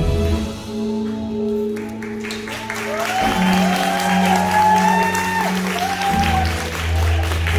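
Curtain-call music with long held notes, joined about two seconds in by audience applause that carries on to the end.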